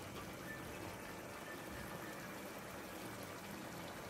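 Thick yogurt-based mutton gravy bubbling steadily in a frying pan over the heat, a faint, even simmer.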